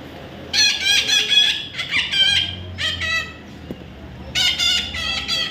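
Young parrot calling: runs of short, high, repeated calls, with a pause about three to four seconds in before another quick run.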